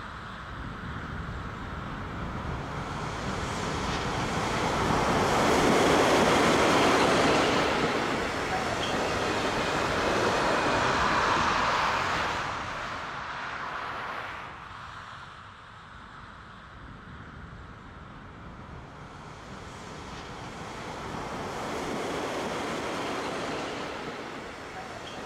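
A train passing: its rolling noise swells to a loud peak about a third of the way in, fades, then rises again more softly near the end.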